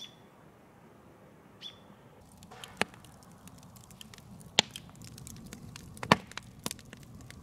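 A bird chirps twice, then from about two seconds in a wood campfire crackles with many small snaps and a few sharp loud pops.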